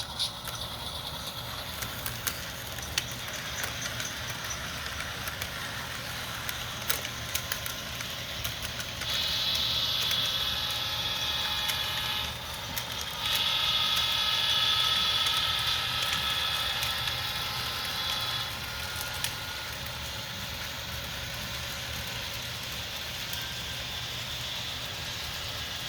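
Sound decoder of an HO scale Atlas Dash 8-40CW model locomotive playing diesel engine sound through its small speaker, with occasional clicks. A multi-tone horn sounds twice: about nine seconds in for some three seconds, then again for about five seconds.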